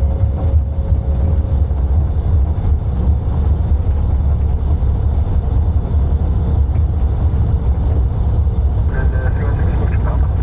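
Steady low rumble on the flight deck of an Airbus A330 rolling out on the runway after landing.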